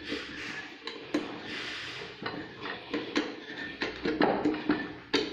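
Irregular clicks and knocks of hands handling a Kydex holster mold and tools.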